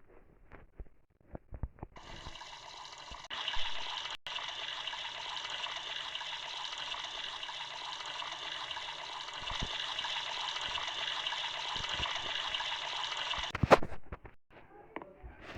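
Water running steadily, starting about two seconds in and cutting off near the end just after a sharp knock.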